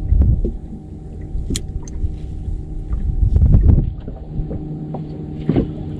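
Wind buffeting the microphone on an open boat: an uneven low rumble that swells about three and a half seconds in, over a steady low hum.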